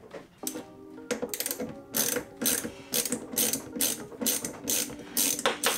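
Socket ratchet wrench being worked in short strokes, its pawl clicking about twice a second, on a hose fitting of the boat's raw-water intake line.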